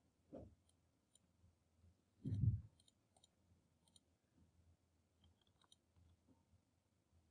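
Faint computer mouse clicks now and then as shapes are selected and adjusted. A dull low thump comes just under half a second in, and a louder one about two and a half seconds in.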